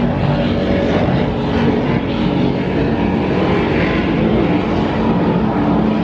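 Offshore racing powerboat engines running hard at speed, a steady, loud engine drone.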